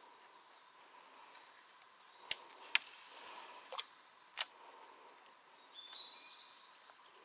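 Four sharp clicks close by, about two seconds apart at first and then in a quick run, over a faint background of birds and insects.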